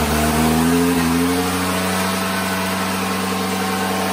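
Top Fuel nitro drag motorcycle engine just after being started, its pitch climbing for about the first second and a half, then settling into a steady idle.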